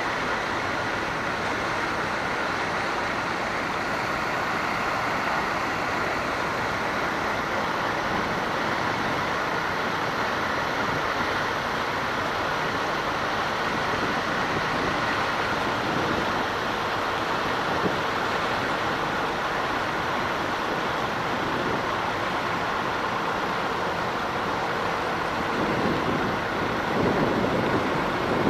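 A road vehicle running steadily, with a continuous rushing noise. The low rumble grows louder near the end.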